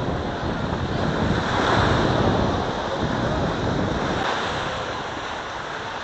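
Small sea waves breaking and washing up on a sandy shore, swelling once about two seconds in and easing toward the end, with wind buffeting the microphone.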